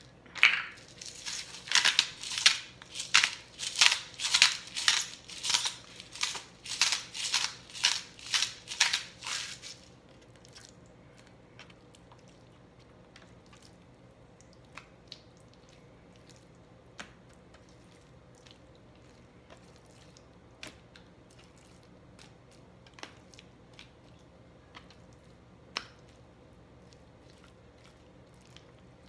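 Hand-twisted salt grinder grinding salt in a steady run of crunchy twists, about two a second, which stops after about ten seconds. After that there are only a few faint, scattered ticks.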